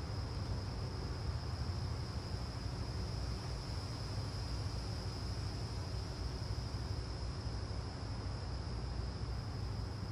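Hyster RS45-31CH reach stacker's Cummins QSL9 diesel engine idling: a steady low rumble. A thin, steady high-pitched tone runs above it.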